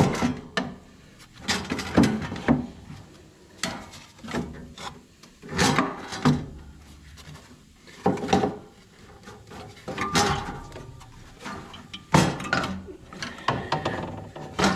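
Dirt-caked fan shroud of a Takeuchi TL250 skid steer being worked loose and shifted up over the radiator by hand. It scrapes and rubs against the radiator and frame in irregular bursts, with a sharp knock right at the start and more knocks along the way.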